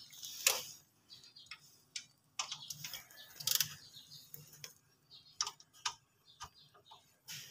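Faint, irregular light clicks and taps of handling close to the microphone, about a dozen scattered through, one louder about three and a half seconds in.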